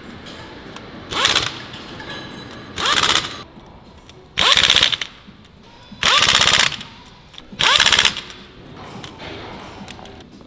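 Pneumatic impact wrench with a hex bit driving socket head cap screws into a steel flange: five short bursts of rapid hammering, about a second and a half apart, each starting with a brief rising whine.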